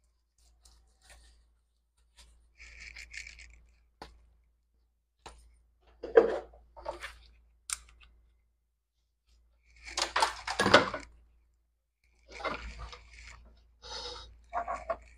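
Handling noises at a workbench: irregular rustling and a few sharp clicks as gloved hands pick up and set down a multimeter and hand tools. The loudest rustling comes about ten seconds in.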